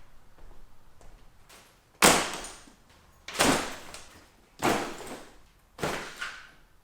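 Four sudden loud impacts about a second apart, each trailing off over about half a second.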